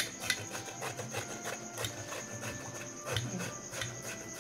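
Irregular clicking and scraping of kitchen utensils and containers while food is being prepared.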